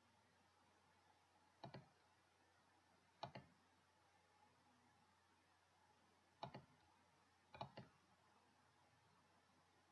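Computer mouse button clicks: four in all, spaced a second or more apart, each a quick double tick of press and release, over faint room hiss.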